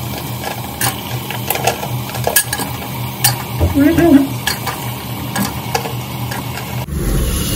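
Pieces of fried chicken dropped into thick masala in an aluminium pot and worked in with a steel ladle: scattered wet knocks and clinks of the ladle against the pot, over a faint sizzle.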